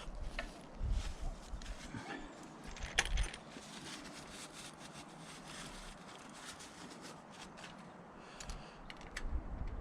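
Small metal hand tools handled at an engine's cam bearing cap: scattered light clicks and taps, with one sharper click about three seconds in, over faint handling bumps.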